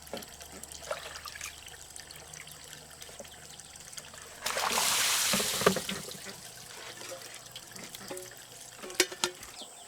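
Water pouring for about a second, starting about four and a half seconds in, with a few small knocks and clinks around it.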